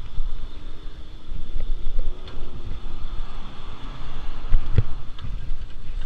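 Wind buffeting the microphone of a body-worn camera on a moving bicycle, a steady low rumble, with scattered small knocks and rattles from the bike over the pavement and one louder knock near the end.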